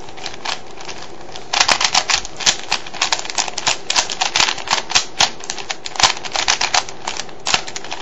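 A 3x3 Rubik's cube being turned quickly by hand: a fast, irregular run of plastic clicks as the layers snap round, starting about a second and a half in and stopping near the end. The turns are the move sequence that places one edge piece during the solve.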